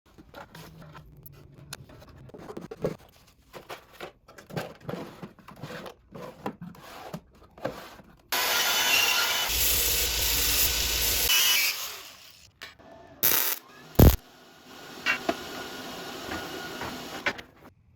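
Workshop tool sounds: several seconds of handling clatter and knocks, then a power tool running steadily and loudly for about four seconds. After it stops there is a sharp knock, then a quieter steady running.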